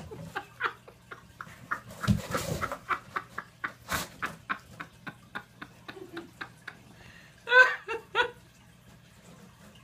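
House cat scrambling in and out of a cardboard box: a run of scratches, taps and knocks on the cardboard, with a louder scrape about two seconds in and a sharp knock as it leaps out about four seconds in. Near the end, three short high-pitched calls in quick succession.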